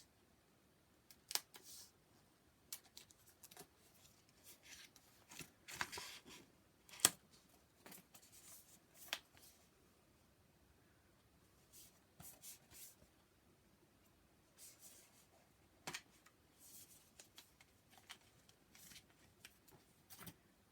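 Packaging on a steelbook Blu-ray being handled and opened by hand: faint, scattered clicks, crinkles and short rustles, with a few sharper clicks.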